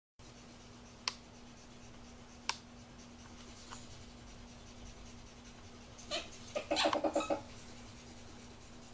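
A ferret making a rapid run of short, pitched calls during mating, about six seconds in and lasting about a second and a half. Two sharp clicks come about a second in and at two and a half seconds, over a steady low hum.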